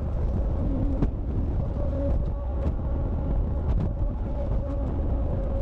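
Cat 279 skid steer's diesel engine running steadily under work, with a few light knocks from the machine.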